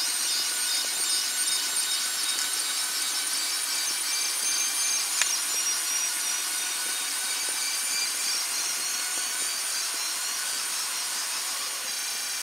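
Delta 3D printer running while it prints, its print head moving continuously: a steady mechanical whir and hiss with faint steady tones, and one brief tick about five seconds in.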